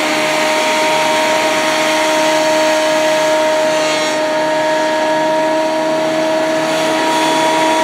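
Benchtop thickness planer running with a steady motor whine.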